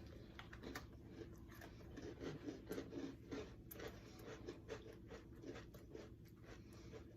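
Faint, irregular small crunches and clicks of crunchy sandwich cookies (cinnamon bun Oreos) being bitten and chewed.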